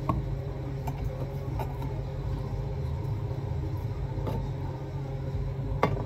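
A steady low background hum with a handful of short clicks and taps from a knife and gloved hands working raw chicken on a cutting board, the loudest tap just before the end.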